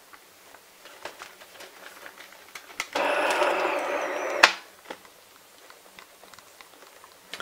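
Berezka-2 accordion keys and valve pads clicking, then about three seconds in a reed chord sounds for about a second and a half and cuts off with a sharp click as the key is released. The instrument is being tried after its valves were adjusted.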